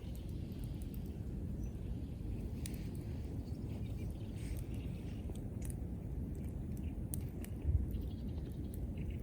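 Wood fire crackling, with scattered sharp pops at irregular intervals over a steady low rumble, and one louder low thump near the end.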